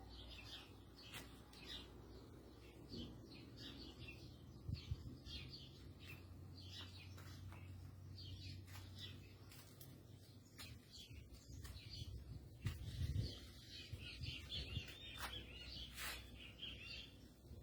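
Small birds chirping over a faint, low, steady hum from the sky, a strange noise that the listener wonders may be a distant airplane. There are a couple of low thumps, about five seconds in and again past twelve seconds.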